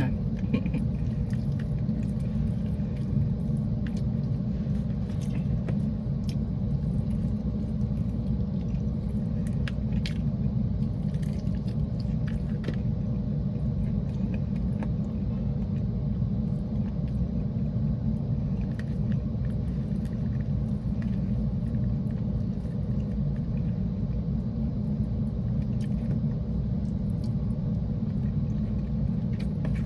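Steady low rumble of a car's running engine heard inside the cabin, with scattered faint clicks and taps over it.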